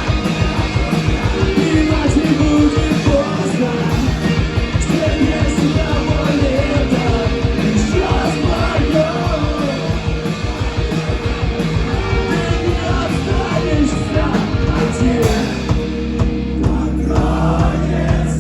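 Rock band playing live, with drums, electric guitars and a singing voice. Near the end the drumming thins out, leaving held chords.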